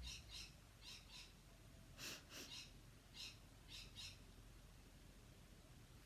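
Faint, short, high chirps, mostly in quick pairs about every half second, pausing for the last couple of seconds, typical of a small bird calling.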